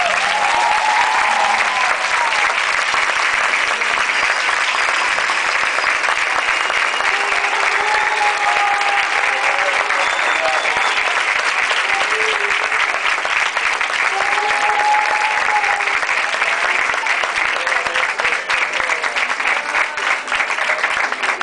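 Audience applauding steadily, with a few voices calling out over the clapping. The applause begins to thin and grow uneven near the end.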